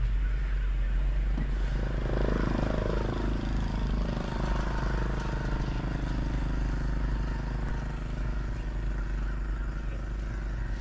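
Large old single-cylinder desi oil engine, a local copy of a Ruston, running steadily with a low, even chug. A set of falling tones comes in about two seconds in.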